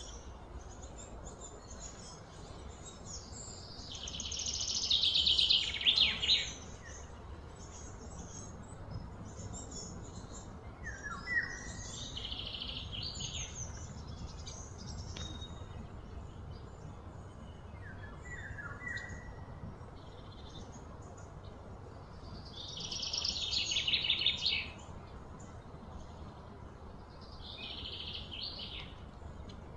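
Birds calling: a few short falling chirps and four louder, rapidly trilled bursts, each lasting one to two seconds; the loudest two swell and then stop.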